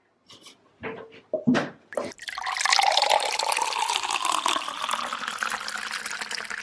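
A few short knocks and clicks, then water running steadily from about two seconds in.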